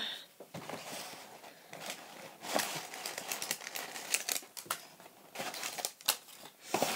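A paper gift bag and tissue paper rustling and crinkling as hands rummage through them, with many small irregular crackles and ticks.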